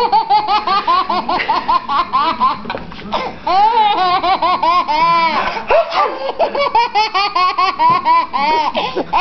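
A baby laughing in long fits of quick, high-pitched breathy laugh pulses, several a second, with short breaks about three seconds in and again near the middle.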